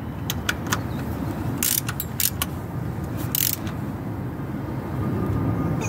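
A 3/8-inch drive socket ratchet tightening bolts: scattered sharp metallic ticks and two short runs of fine ratchet clicking on the back-swings, about a second and a half apart, over a steady low rumble.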